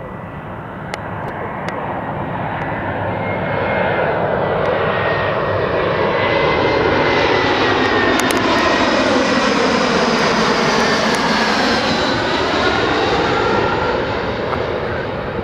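Twin-engine jet airliner on final approach with gear down, passing low overhead: engine noise with a high whine that builds to a peak midway, sweeps as the plane goes over, and fades toward the end.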